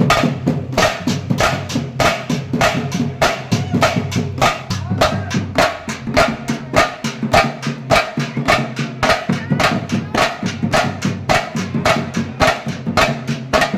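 Music with a fast, steady drum beat over a bass line.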